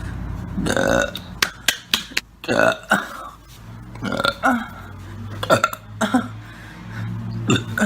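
A woman burping repeatedly: a series of short burps, roughly one every second, with a few sharp throat and mouth clicks between them.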